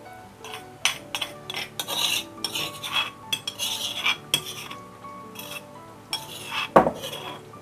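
A cooking utensil stirring thick rendang and grated coconut in a pan, in a run of irregular scrapes and clinks against the pan, with one sharp knock, the loudest sound, near the end.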